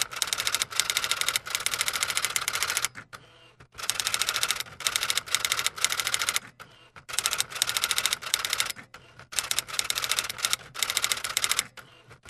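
Typewriter sound effect: rapid runs of key clacks separated by short pauses, in step with on-screen text being typed out.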